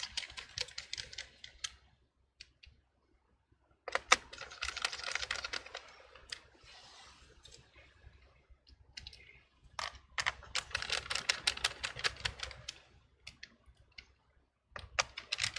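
Small screwdriver driving screws into a laptop battery pack, heard as spells of rapid clicking a couple of seconds long, with quiet gaps between them.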